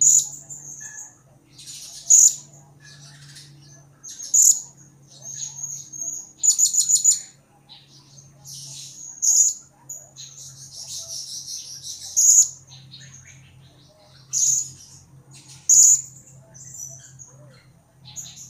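Blue-crowned hanging parrot giving sharp, high-pitched chirping calls every second or two. A quick run of rapid notes comes about six to seven seconds in, and a longer stretch of chatter around ten to twelve seconds.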